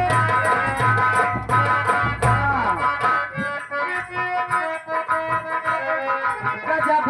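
Instrumental stage music: a steady drum beat for about the first three seconds, then the drums drop out and a keyboard melody carries on alone.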